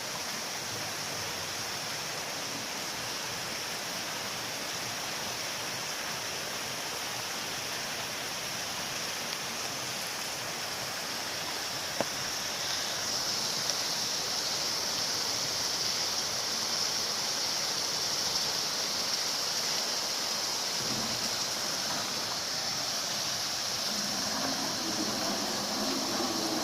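Steady heavy rain falling, an even hiss that grows slightly louder about halfway through. A single sharp click about twelve seconds in, and a low pitched hum joins near the end.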